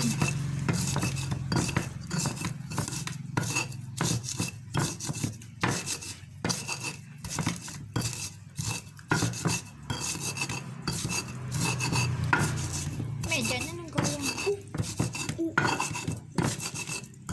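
Stone pestle grinding chilies, peanuts and sugar in a stone mortar (ulekan and cobek): a steady run of gritty scrapes and knocks of stone on stone.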